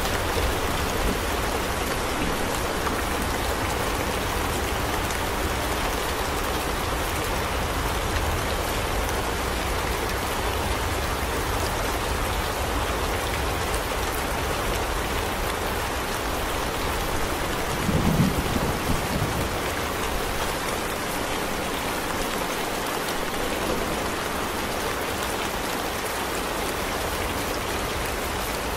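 Steady rain ambience, an even hiss of falling rain, with a brief low rumble about eighteen seconds in.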